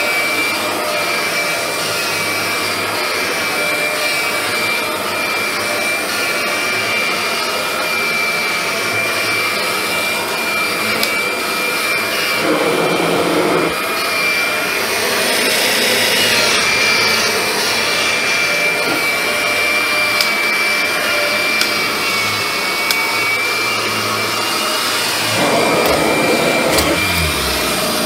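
1989 Kirby G4 Tech Drive upright vacuum cleaner running while being pushed over carpet, with a steady high-pitched whine over its motor hum. The sound shifts briefly about halfway through and again near the end.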